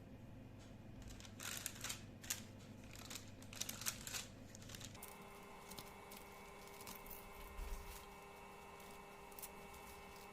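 Faint crinkling and rustling of something being handled, in a cluster of short crackles between about one and four seconds in, then a few scattered light clicks over a low steady hum that changes abruptly about five seconds in.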